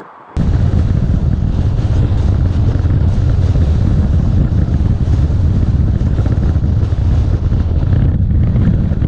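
Loud, steady low rumble of wind and road noise from a moving car, heavy wind buffeting on the camera's microphone, starting abruptly about half a second in.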